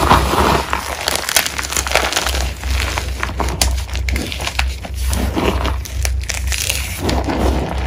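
Fingers squeezing and crushing crumbled gym chalk chunks and powder: a dense, continuous run of soft crunches and crackles.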